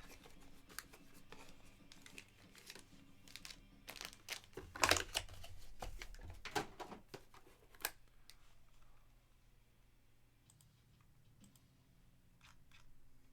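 Irregular light clicks, taps and rustles of small objects being handled on a desk, busiest around four to five seconds in and dying down to a few faint ticks after about eight seconds.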